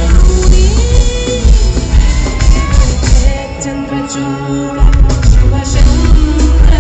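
Live performance of a Telugu devotional Shiva song: a woman singing over an amplified band with heavy bass. About halfway through, the bass drops out for about a second and then comes back in.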